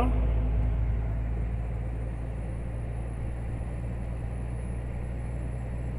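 Scania DC13 diesel engine of a fully loaded Scania R440 truck pulling steadily up a long grade, heard from inside the cab as a low, steady drone mixed with road noise. The sound eases a little over the first second and then holds level.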